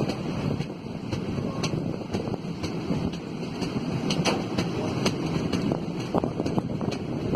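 Passenger train rolling past on the track: a steady rumble of wheels on rails with irregular sharp clicks and knocks, and wind on the microphone.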